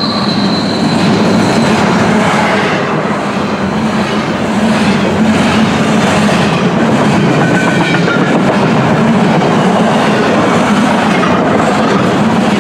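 Empty double-stack well cars of a BNSF intermodal freight train rolling past with a steady rumble and rattle of steel wheels on rail. A faint wheel squeal fades out at the start, and another brief one comes about seven seconds in.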